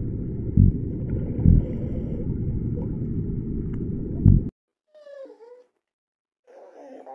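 A steady low underwater rumble with three dull thumps, cutting off sharply about four and a half seconds in. Then an English bulldog gives a short whining call, and near the end starts a wavering whine.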